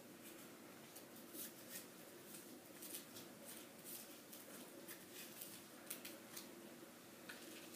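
Faint scattered clicks and light rustling of small plastic toy-kit trays being handled and pressed by hand, over a steady low room hum.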